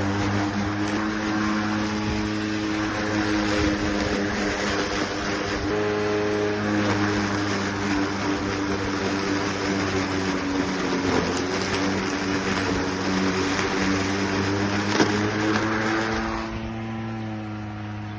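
Greenworks 40V cordless lawn mower running, its electric motor and blade giving a steady hum over the rush of cutting grass. The sound gets somewhat quieter near the end.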